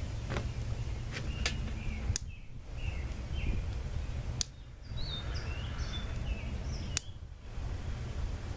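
A small butane torch lighter clicking about five times as it is fired at the paper under a charcoal chimney starter in several spots, over a steady low rumble. Birds chirp faintly in the background.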